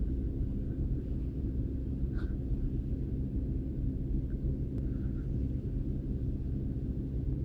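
Steady low rumble with a constant hum, typical of a vehicle engine running, heard from inside the cabin.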